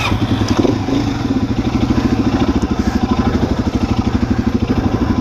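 Suzuki DR-Z400's single-cylinder four-stroke engine idling with a steady, even beat of about a dozen pulses a second.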